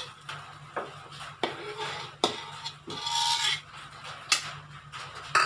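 Metal slotted spatula clinking against the wok and a bowl while fried anchovies are scraped off it, several sharp taps roughly a second apart, with a short scraping rasp about three seconds in.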